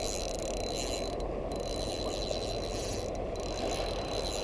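Spinning reel being cranked with a fish on the line, its gears giving a steady, rapid ratcheting whir.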